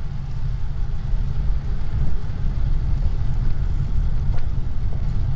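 Steady low rumble of a vehicle moving slowly through streets, picked up by its own drive recorder: engine and road noise with a few faint ticks about four to five seconds in.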